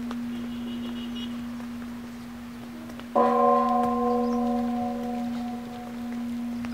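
A large bell struck once about three seconds in, ringing with several tones at once and fading over about three seconds, over a steady low drone.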